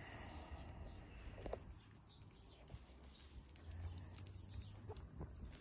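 Quiet summer outdoor ambience: a steady high-pitched insect buzz that fades out for about three seconds and comes back, with a few faint clicks and rustles.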